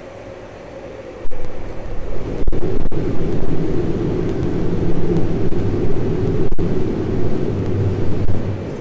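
Fusion reactor startup: a steady machine hum that jumps suddenly much louder about a second in, becoming a heavy rumbling drone with low humming tones.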